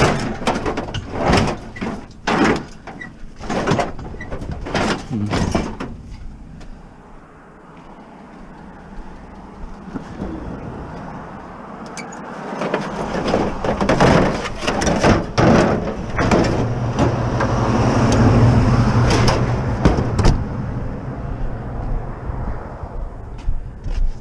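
Metal scrap clanking, knocking and scraping as a black steel frame is forced into a minivan's packed cargo area, with a quieter stretch in the middle. A low steady hum joins in the second half.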